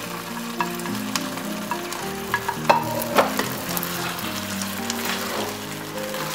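Wooden spatula stirring and scraping mapo tofu and rice cakes in a frying pan while the sauce sizzles, with two sharper knocks of the spatula about halfway through. Soft background music with steady notes plays underneath.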